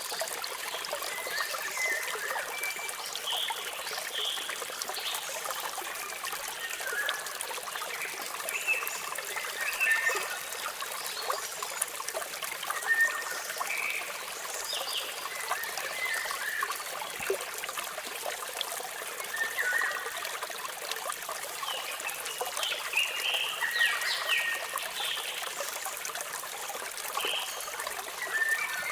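Waterfall water splashing and trickling steadily, with birds chirping in short calls scattered throughout.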